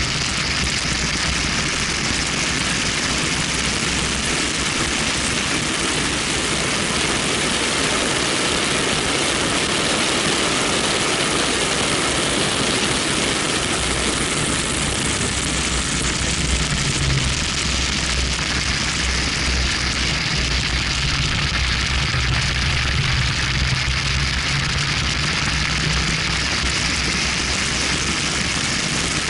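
Steady rush of wind over an action camera mounted outside a BMW 1M at track speed, with the car's twin-turbo straight-six engine and tyre noise running low underneath.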